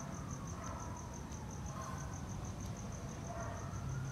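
A cricket chirping steadily, about five high chirps a second, over a low steady rumble.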